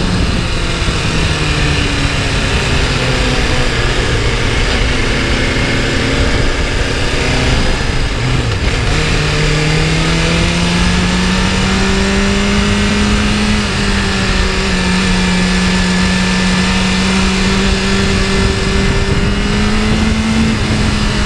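BMW S1000RR's inline-four engine running on track under the rider, with wind rushing over the microphone. The engine note drops about a second in, then climbs steadily after the middle and steps down again as gears change, rising once more near the end.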